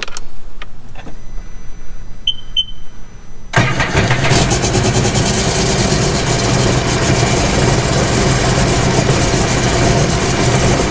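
Two short beeps, then about three and a half seconds in the 2017 Sea-Doo GTR 230's supercharged three-cylinder Rotax engine starts and runs steadily. It is running after the loose cylinder-3 injector connector at the ECU harness was pushed back in, and no fault beep is heard.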